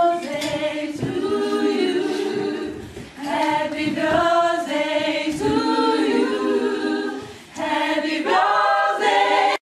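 Several voices singing together without instruments, in a run of short sung phrases separated by brief pauses.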